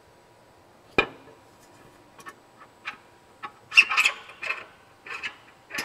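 Metal brush hub being fitted onto a side-brush motor shaft: a sharp metallic knock about a second in, then light clicks and a run of clinking, scraping and rattling of metal parts near the end.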